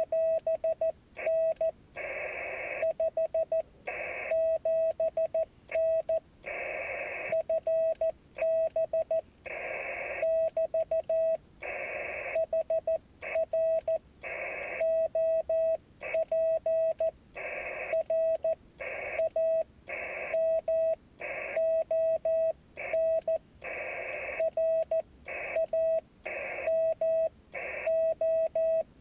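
Slow Morse code (CW) from a Yaesu FT-817D transceiver: a single tone of about 650 Hz keyed on and off in dots and dashes, with short bursts of hiss between groups of characters.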